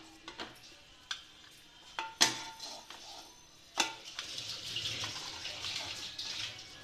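A steel slotted spoon knocks and scrapes against a non-stick kadhai while lifting paneer cubes out of hot ghee: several sharp clicks, the loudest about two seconds in and another near four seconds. A soft sizzle of the hot ghee follows in the second half.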